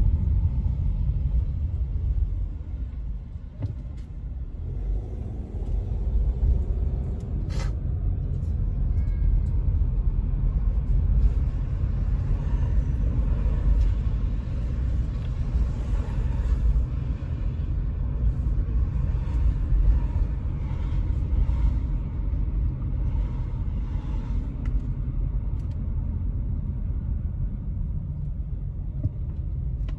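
Steady low rumble of a car being driven slowly on town streets, heard from inside the cabin. It briefly gets quieter about three seconds in, then picks up again. There is a single sharp click about eight seconds in.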